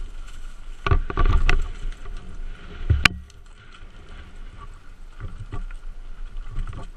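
Mountain bike rolling fast down a rough dirt trail: a steady rush of motion and wind, broken by sharp knocks and rattles as it hits bumps, several about a second in and one loud one about three seconds in.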